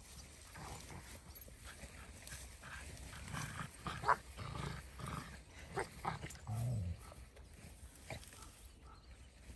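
A Dalmatian and a puppy playing on a heap of wood chips and weeds: faint scuffling and rustling as they scrabble about, with a short low dog grunt about two-thirds of the way through.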